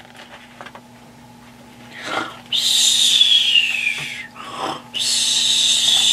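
A person imitating cartoon snoring twice: a short rasping snort in, then a long whistling breath out that slides down in pitch. The first starts about two seconds in and the second about four seconds in.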